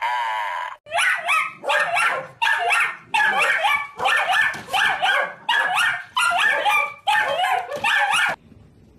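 A dog gives a short held howl, then after a break dogs bark and yip in a rapid run of loud bursts, about one every 0.7 seconds. The barking stops abruptly near the end.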